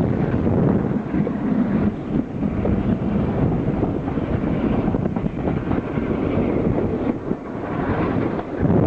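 Wind buffeting the microphone over the steady rumble of a train, with no clear beat or whistle.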